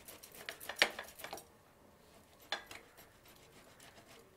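Boiled potato being grated on a stainless-steel box grater: quick rasping strokes with light clinks, strongest in the first second and a half, then fainter, with one sharp click about two and a half seconds in.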